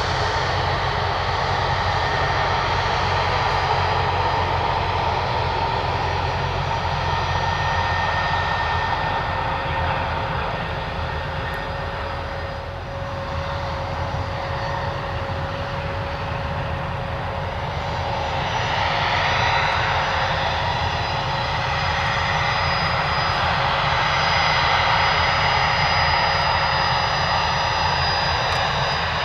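Bombardier Challenger 605 business jet's twin GE CF34 turbofan engines running, a steady jet whine with several held tones over a rushing noise. The sound dips briefly about 12 seconds in, then swells and grows brighter from about 18 seconds.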